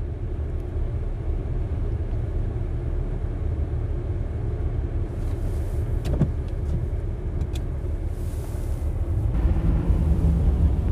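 Low, steady rumble of a car's engine and road noise heard from inside the cabin, with a couple of sharp clicks in the middle. About nine seconds in, the road noise becomes louder, with more hiss.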